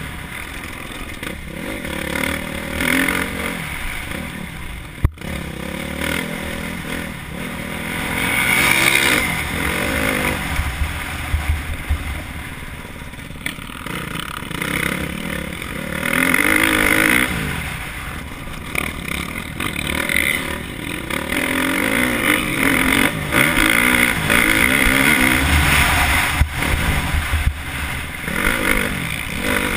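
KTM 350 SX-F's single-cylinder four-stroke engine being ridden hard, its pitch rising and falling again and again with throttle and gear changes, heard from a helmet camera with wind rumbling on the microphone. A sharp knock about five seconds in.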